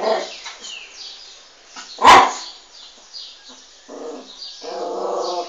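Small dog barking: one loud, sharp bark about two seconds in, with shorter vocal sounds at the start and a longer, drawn-out one near the end.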